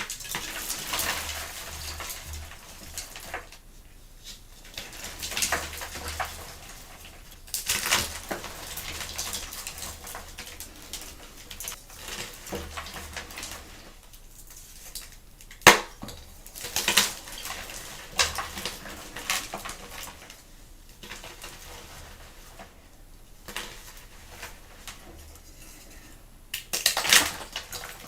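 Blocks of gym chalk being crushed: irregular crunches and crumbling with short pauses between, one sharp snap about 16 seconds in, and a quick run of crunches near the end.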